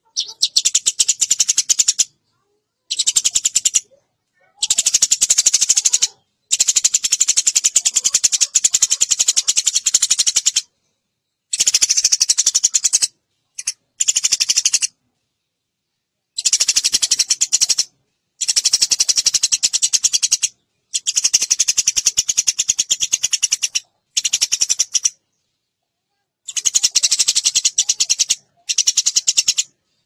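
Eurasian tree sparrow chirping in fast, dense runs, in bursts of one to four seconds that stop and start abruptly with short silences between.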